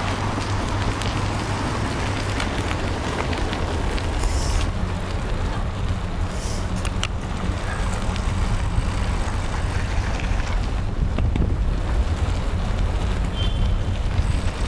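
Wind rushing over the microphone of a camera on a moving bicycle, a steady low rumble from the ride through city streets.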